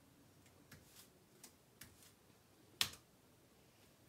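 Computer keyboard keystrokes: a few faint key clicks, then one sharper, louder keystroke about three seconds in.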